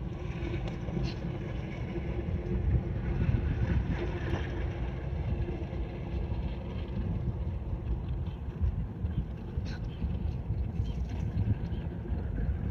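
Steady low rumble of wind buffeting the microphone outdoors, with a few light clicks and rustles from plants being handled.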